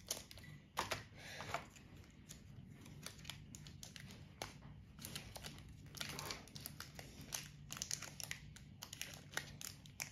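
Foil wrapper of a Pokémon trading-card booster pack crinkling and crackling irregularly as it is cut with scissors and pulled open to get at the cards.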